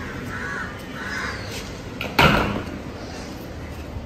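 Crows cawing: two faint calls in the first second or so, then one louder, harsh caw about two seconds in.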